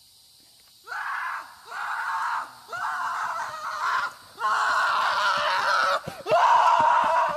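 Horse giving a run of about six loud, scream-like cries, each half a second to a second and a half long, getting louder towards the end.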